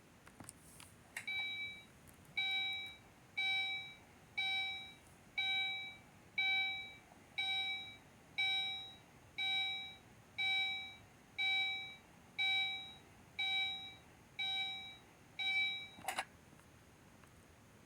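Fire alarm going off: about fifteen loud electronic beeps, about one a second, each fading slightly as it sounds. The beeping stops with a click near the end.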